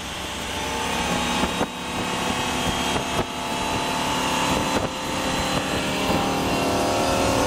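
MerCruiser 5.0 MPI V8 sterndrive engine (260 hp, Bravo III drive) opened up to wide-open throttle, growing steadily louder as it climbs toward almost 5,000 RPM, with rushing wind and water under it. A few brief knocks come through along the way.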